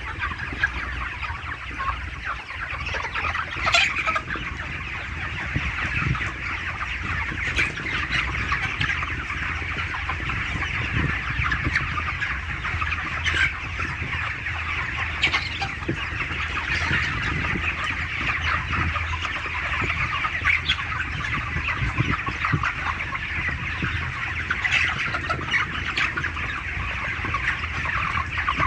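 A large flock of broiler chickens in a poultry shed, a dense, continuous chatter of many clucks and peeps over a low steady hum.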